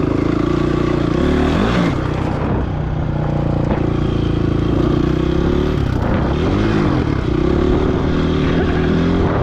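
Dirt bike engine running steadily under way, its pitch dipping and climbing back twice, about two seconds in and again around six to seven seconds in, as the throttle is eased and reopened.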